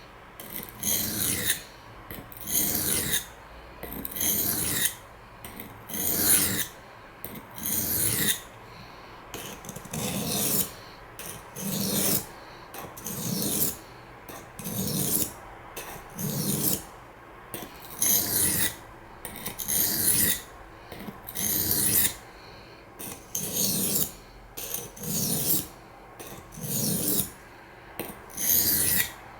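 Steel knife blade, CPM S30V, being stroked back and forth on a water sharpening stone: a steady run of scraping strokes, about one a second.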